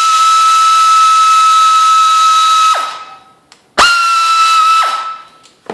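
Power tool with a loud steady high whine over a hiss, running the bolts out in two bursts: a long run that winds down just before the halfway point, and a second shorter run about a second later that also winds down.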